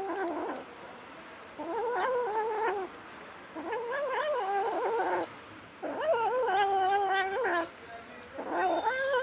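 A cat meowing in a series of long, drawn-out calls that waver in pitch, five in a row, each lasting a second or more with short pauses between.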